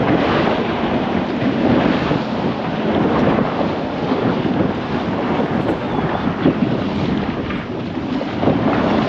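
Steady wind buffeting the microphone over the rush of water churned up by a moving boat's wake.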